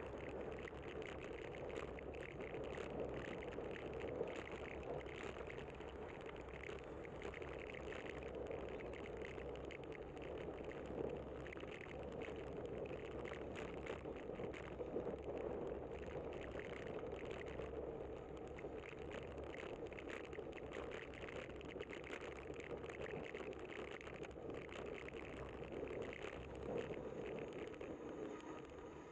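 Steady road and wind noise of a bicycle riding along a city street, with many small scattered ticks and rattles.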